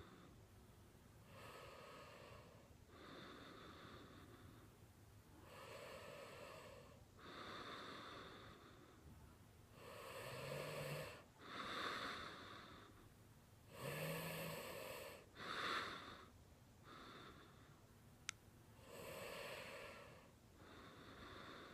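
Snoring in sleep: a steady run of noisy in-and-out breaths, one every second or two, with two short low snorts in the middle.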